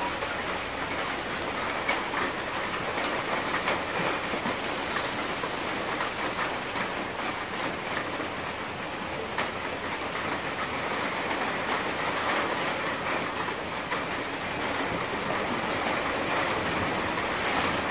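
Water running from the tap of a plastic water jug into a cooking pot, a steady stream.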